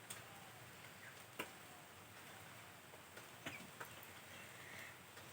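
Near silence: room tone with a few faint ticks and clicks.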